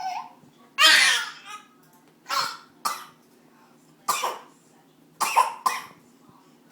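A young child fake-coughing: a string of short, forced coughs, the loudest about a second in and the last two in a quick pair.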